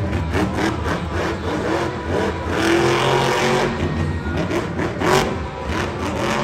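Monster truck's supercharged V8 engine revving, the revs rising and falling.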